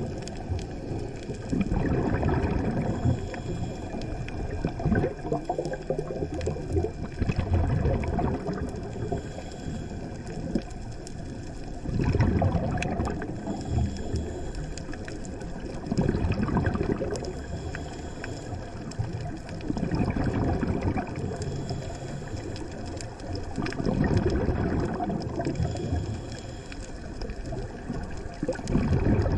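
Underwater bubbling and gurgling from a scuba diver's regulator exhaust. The bubbles swell in repeated surges every few seconds, in time with the diver's breathing.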